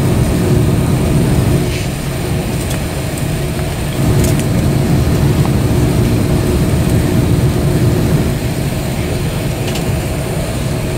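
Steady low hum inside the cabin of a parked Airbus A330-200, its air-conditioning and ventilation running, with faint steady tones over it and a few light clicks.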